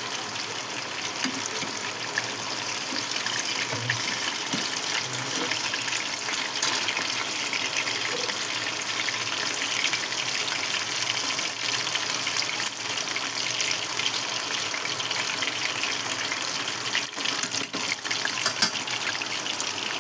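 Chicken lollipops deep-frying in hot oil: a steady, busy sizzle and crackle.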